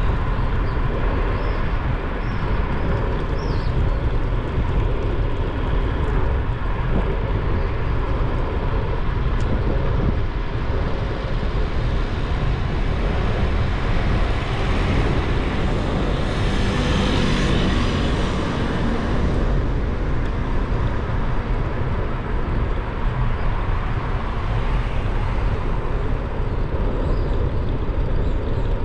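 Steady rush of wind and road noise from a moving vehicle carrying the camera, heavy low rumble throughout, with a louder swell of hiss a little past halfway.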